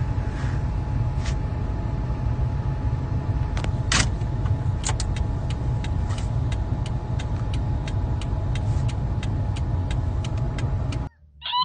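Steady low rumble, like the inside of a moving car, with a faint steady hum. From about five seconds in, a run of regular ticks comes at roughly three a second. Everything cuts off suddenly near the end.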